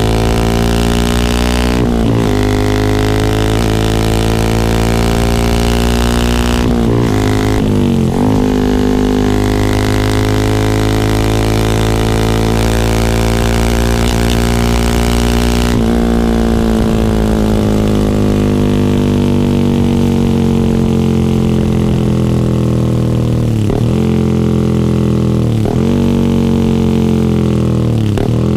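Yamaha R15 V3's 155 cc single-cylinder engine running through an R9 GPX-SS full-system aftermarket exhaust, a steady droning note that sinks slowly in pitch. Its note dips briefly every few seconds and drops suddenly to a lower pitch about halfway through.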